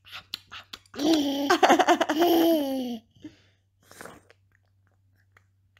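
A loud, drawn-out voice sound, laugh-like, lasting about two seconds and sliding down in pitch at its end, followed by a short softer vocal sound a second later.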